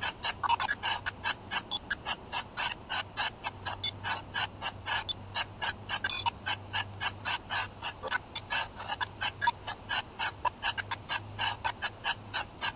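SpiritVox ghost-box app playing through a smartphone's speaker: a rapid chopped stream of short noise and voice fragments, several a second, as it sweeps. A low steady hum runs under it.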